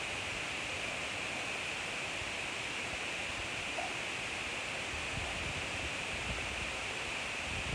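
Kebab and shrimp skewers sizzling on a hot grill, a steady hiss.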